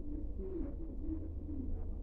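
A pigeon or dove cooing softly, a few low wavering coos in a row, over a steady low hum.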